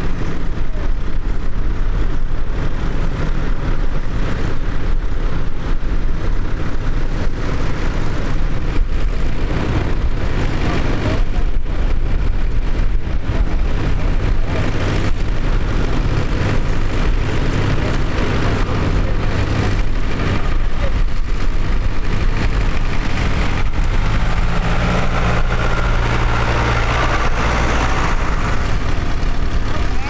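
Tractor engines running steadily, with one engine growing louder near the end.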